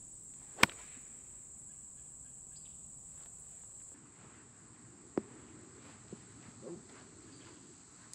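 A wedge strikes a golf ball with one sharp click, about half a second in, over insects' steady high buzz. A fainter knock follows about five seconds in, with a few soft sounds after it.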